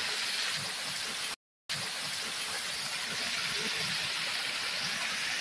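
A steady rushing, hissing noise like gushing water. It drops out completely for a moment about a second and a half in, then resumes and stops abruptly at the end.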